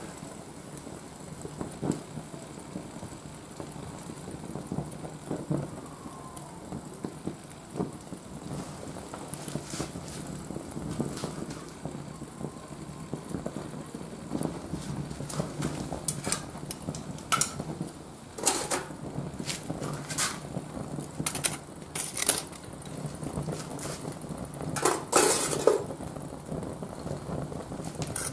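Oga binchotan sawdust-briquette charcoal catching in a chimney over an alcohol stove, with a steady rush of flame and scattered sharp pops and crackles that grow more frequent in the second half.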